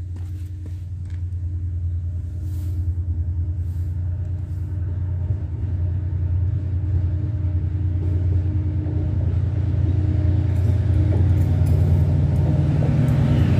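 Class 68 diesel locomotive approaching on a TransPennine Express train: a low, steady engine drone that grows louder throughout.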